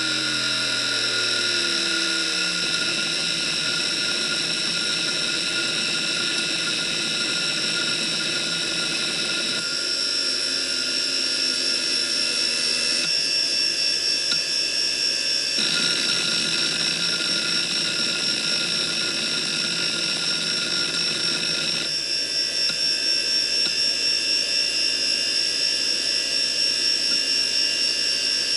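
3.5-inch hard drive seeking continuously under a seek-time benchmark: a fast buzzing chatter from the head actuator over a steady high-pitched whine, with the buzz sliding down in pitch about two seconds in. In the last quarter the seeking gives way to the drive idling.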